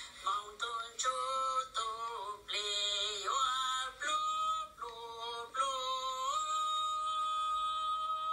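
A high voice singing a melodic line in short, gliding phrases, settling about six seconds in on a long held note.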